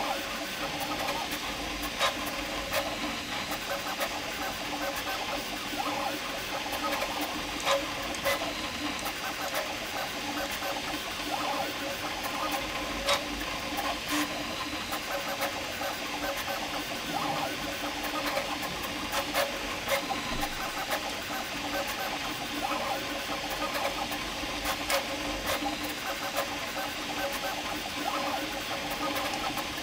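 Prusa MK4 3D printer printing fast on input-shaping firmware: its stepper motors whir in rapidly changing tones over the steady hiss of its fans, with scattered sharp clicks.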